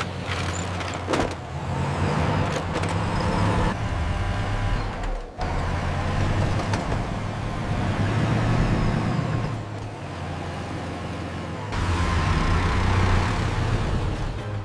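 Truck engine sound effect running steadily, changing in pitch and load in several stretches, with a brief drop-out about five seconds in.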